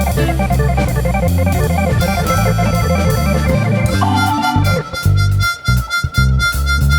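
Instrumental background music: keyboard chords over a steady bass line, changing about four seconds in to a long held high note over a sparser beat.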